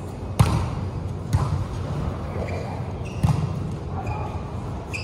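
Volleyball being played: three sharp hits on the ball, the first two about a second apart and the third about two seconds later, each echoing in a large hall. A few short high squeaks come between the hits.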